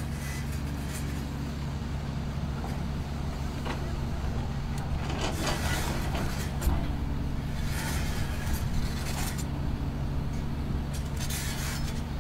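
A heavy construction machine's engine running steadily, with several short bursts of rushing noise over it partway through.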